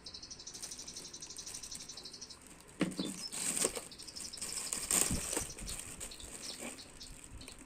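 Rustling and crinkling of plastic packaging as the bottle's box is handled, loudest about three seconds in and again around five seconds. A steady pulsing chirp of crickets runs underneath.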